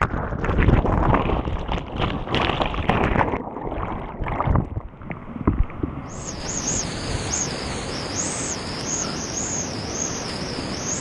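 Whitewater rapid of a high, flooded river rushing over a kayak. For the first few seconds the sound is muffled as the camera is under the water, with splashes and knocks; about six seconds in it opens into an even, full rush of whitewater.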